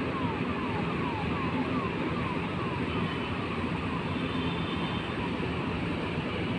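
Steady hiss of rain, with a low steady hum under it. A short falling chirp repeats about three times a second and fades out about four seconds in.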